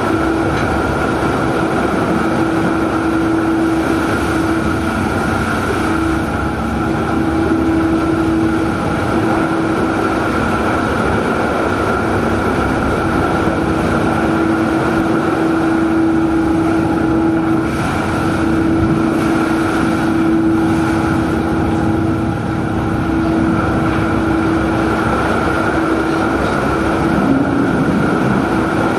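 Fishing longliner's engine and deck machinery running with a steady, loud drone and a constant hum while the longline is being shot.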